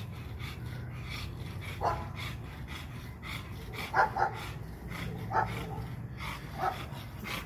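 Two American bully dogs play-fighting, giving short barks about five times over a low steady rumble.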